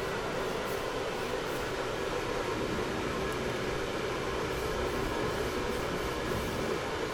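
Steady, unchanging machine-like noise with a hum.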